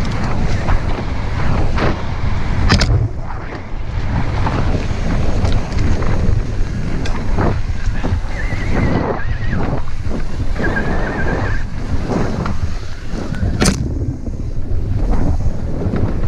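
Mountain bike ridden fast down a rough trail: wind buffeting the camera microphone over tyre noise on dirt and a clatter of knocks as the bike hits bumps. Two brief high squeals sound about halfway through.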